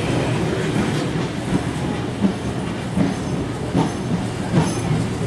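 Heritage passenger carriages rolling past, their wheels clacking over rail joints with a knock roughly every second over a steady rumble.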